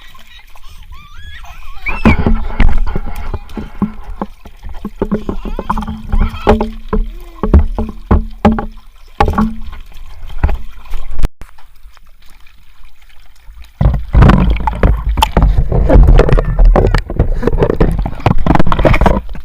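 Water sloshing and splashing in a baby's bath or kids' pool, in loud, irregular bursts with a quieter stretch in the middle.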